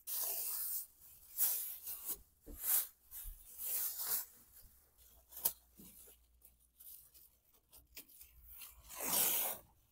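Masking tape being pulled off the roll and torn in a series of short pulls, with plastic masking sheet rustling as it is pressed onto a pickup's back window. The longest pulls come at the start and about nine seconds in.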